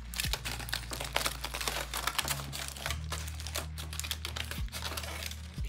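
Aluminium foil crinkling and crackling as a burger's foil wrapper is unfolded by hand, a dense run of small crackles throughout.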